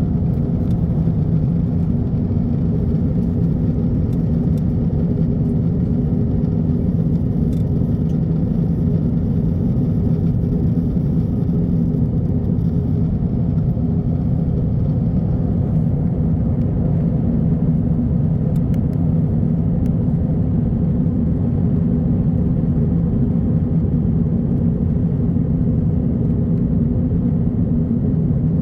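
Airliner cabin noise in flight: the steady low drone of the jet engines and airflow, unchanging throughout.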